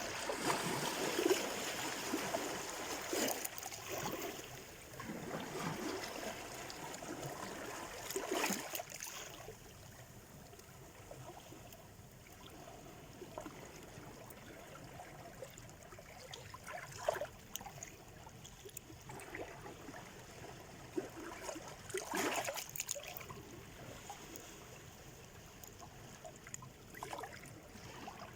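Black Sea surf washing onto the shore: a louder wash of water over about the first nine seconds, then quieter lapping and hiss with brief splashes about 17, 22 and 27 seconds in.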